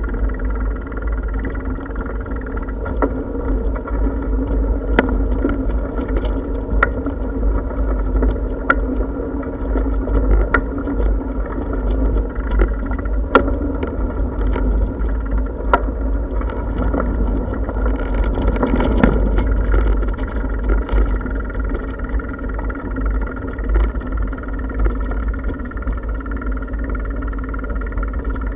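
Bicycle rolling over brick paving, heard from a camera mounted on the bike: a steady low rumble with sharp knocks every second or two as the wheels jolt over the paving.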